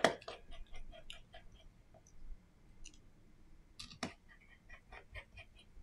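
Small clicks and taps as fingers handle the opened smartphone's frame and internal parts, with a sharper click at the start and another about four seconds in.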